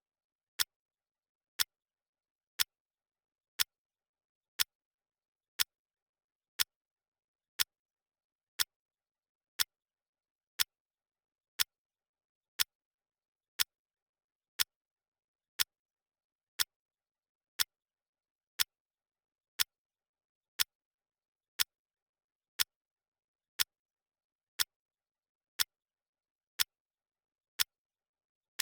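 Clock ticking sound effect: one sharp tick every second, evenly spaced, with dead silence between ticks, each tick marking a second of the countdown.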